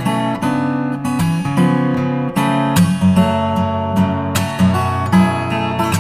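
Music with a strummed acoustic guitar.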